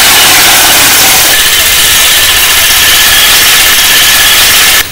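Motorcycle engine running loud and steady close by, with a hissy, noisy edge; the sound cuts off suddenly near the end.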